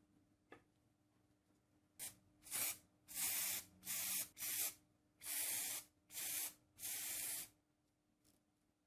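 Aerosol spray can spraying in about eight short hissing bursts, starting about two seconds in and lasting roughly five seconds, as a finish is sprayed onto wood.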